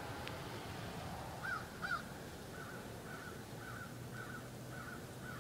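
A bird calling: two louder calls about one and a half seconds in, then a run of fainter, evenly repeated calls, about two to three a second.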